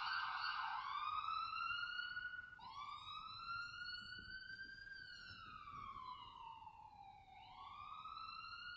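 Recorded howling played back through a small speaker: long, clear notes that glide slowly up and down in pitch, each lasting about two seconds, with one note breaking off and a new one starting low and rising. It grows fainter after about two seconds.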